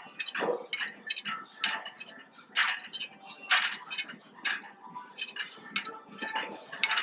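Metal weights and gym equipment clinking and clanking, with sharp knocks about once a second over low gym background noise.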